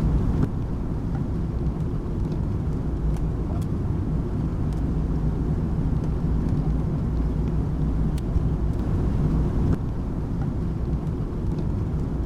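Steady low rumble of a car on the move, with a few faint ticks.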